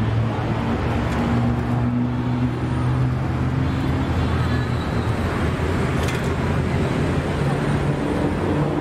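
Steady low hum of a motor running close by, under a constant wash of outdoor street noise.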